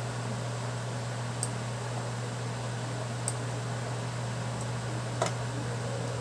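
A steady low hum with an even hiss, and a few faint clicks, the clearest about five seconds in.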